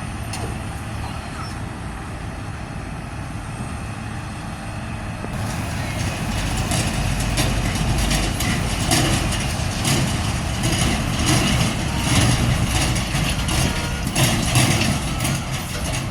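Heavy diesel truck engine running steadily, then growing louder about five seconds in, as the truck pulls closer or works harder, with a run of knocks and rattles on top.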